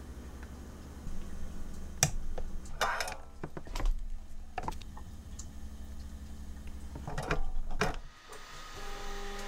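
Plastic clicks and knocks of a 3D-printed PLA PCB clamp's levers and cams being worked by hand, over a low steady hum. Near the end a Bambu Lab 3D printer's motors take over with a steady pitched hum as the print head moves.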